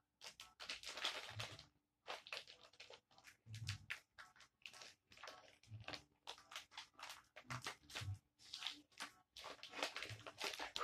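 Faint, irregular crinkling and rustling of a foil Pokémon booster pack wrapper being opened and handled.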